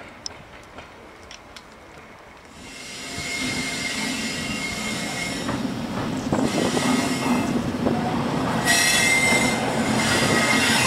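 Class 60 diesel locomotive 60062 approaching and passing, its engine growing louder from about two and a half seconds in, with a steady high-pitched wheel squeal over the low engine hum. The squeal grows stronger from near nine seconds as the locomotive draws level.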